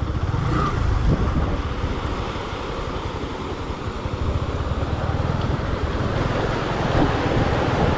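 Motorcycle riding through a shallow stream, its engine and the rush of water under a steady wind noise on the microphone.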